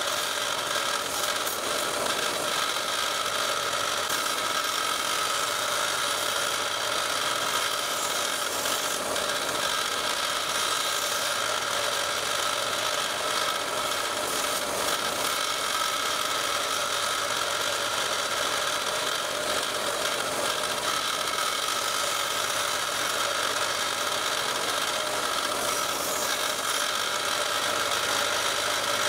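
Narrow vertical belt sander running steadily, with the rasp of a carbon fiber landing gear leg being ground against the moving belt.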